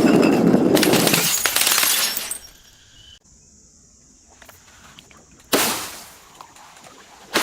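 Glass shattering and crunching: a long crackling crunch for about two seconds, then a second sharp break about five and a half seconds in that dies away. A faint steady high tone sounds in the gap between them.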